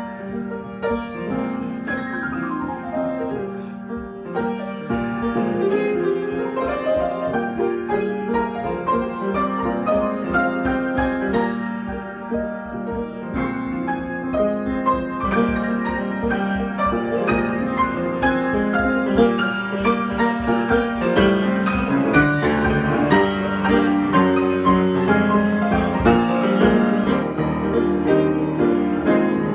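Piano played as an improvisation, with quick rising and falling runs over held lower notes and chords.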